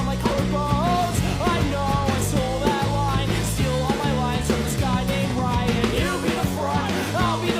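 Background song with a singing voice over a fast rock backing of bass, guitar and drums with a steady beat.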